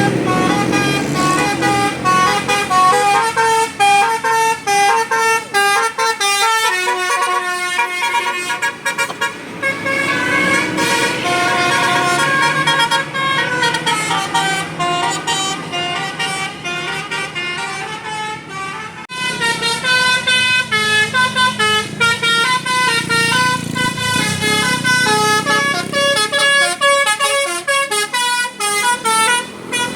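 Bus telolet basuri horn playing a fast tune of short, stepped horn notes. The tune breaks off sharply about two-thirds of the way through, then starts again.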